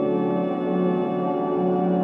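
Ambient background music: layered, sustained drone tones, with a low note swelling about once a second.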